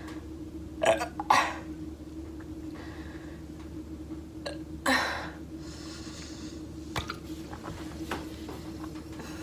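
A girl burping after drinking water: two short burps close together about a second in, then a longer one about five seconds in.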